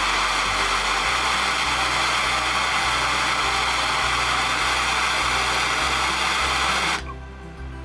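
Handheld gas torch flame hissing steadily as it heats a copper pipe and brass PEX adapter for soldering; the hiss cuts off suddenly about seven seconds in.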